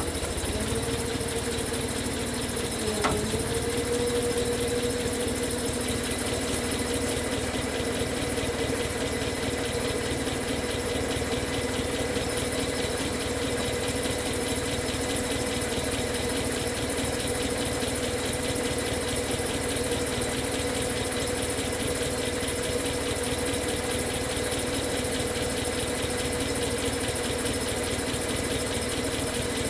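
Engine of the machine lifting the chained wrecker boom, running steadily at a low, even speed. About three seconds in there is a single sharp clank, and the engine note briefly sags and then settles back.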